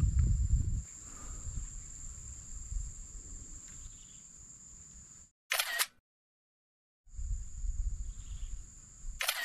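Steady high-pitched insect drone with a low rumble of wind on the microphone. It cuts off twice into dead silence, each time with a short, sharp click like a camera shutter, once about halfway through and again at the very end.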